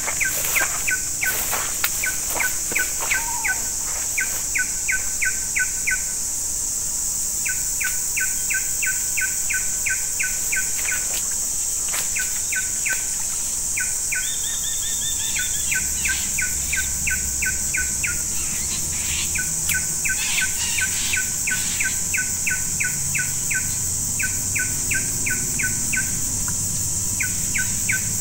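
Swamp-forest wildlife: a steady high-pitched insect drone, with runs of quick, evenly spaced chirping notes, about five a second, that break off and start again every few seconds.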